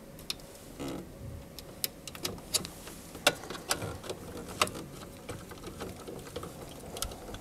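Irregular small clicks and light scrapes of a small screwdriver working a terminal screw and a wire being seated into a variable frequency drive's screw terminal block.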